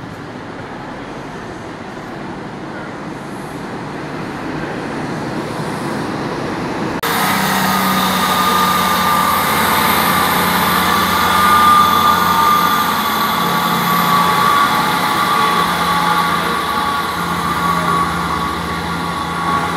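Diesel passenger train running at the platform, a steady engine hum with a higher whine over wheel and rail rumble. The sound builds gradually, then jumps abruptly louder about seven seconds in.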